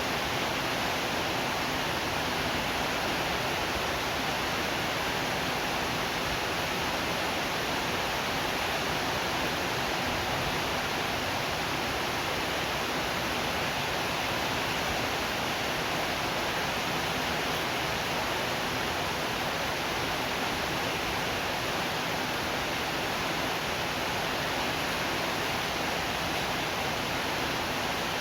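Steady rain, an even, unbroken hiss with no distinct drops or thunder standing out.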